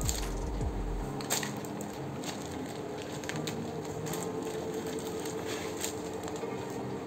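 Rustling and crinkling of packaging and cotton fabric as a pair of shorts is unfolded and handled, with scattered small clicks.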